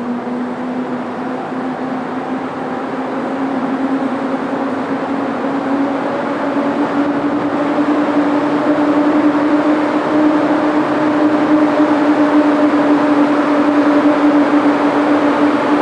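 PKP Cargo ET41 twin-section electric locomotive passing slowly with its freight train, giving a steady whine that rises slightly in pitch over a rumble of running gear, growing louder as it comes past.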